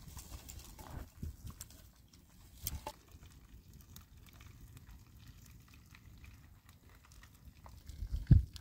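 Dry twigs being gathered and handled beside a small wood fire: scattered light snaps and knocks, with one heavier low thump near the end.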